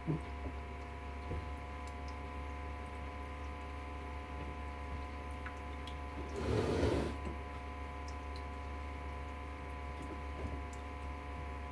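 Jebao CP-40 cross-flow aquarium pump running in reef crest mode: a steady electrical hum with a thin whine over it. There is a brief louder rush of noise about six and a half seconds in.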